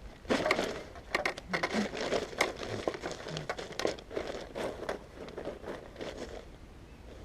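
Close rustling and crinkling with many sharp crackles, like material being handled, lasting about six seconds and then dying down.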